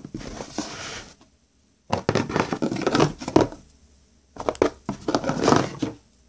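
Fingers scratching and picking at a torn paper surface close to the microphone. The scraping and tearing comes in rough bursts, with a short silent break about a second in.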